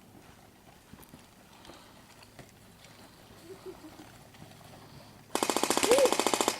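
Airsoft electric gun firing a rapid full-auto burst for just over a second near the end, an even mechanical rattle. The gun is dry firing with no BBs feeding, because its high-capacity magazine needs winding.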